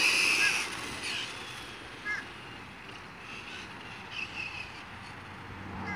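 Traxxas Stampede RC truck's brushless motor and drivetrain running with a high whine and tyre noise, fading out within the first second as the truck drives away. After that there is quieter outdoor background with a couple of short high chirps.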